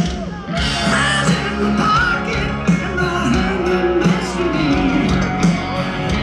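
Live rock band playing loud amplified music through a stadium PA, with electric guitar and a singer, heard from within the crowd. The music drops briefly about half a second in, then carries on.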